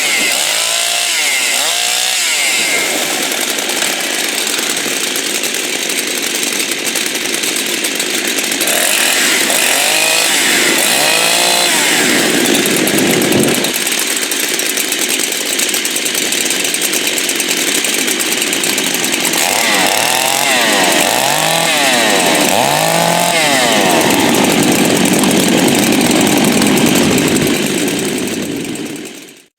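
Two-stroke chainsaw running at full throttle, its engine pitch sagging and climbing back again and again, as it does when the chain bogs in wood. The sound cuts off abruptly near the end.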